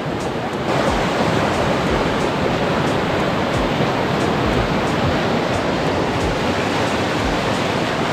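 Fast-flowing mountain river rushing steadily, growing louder a little under a second in.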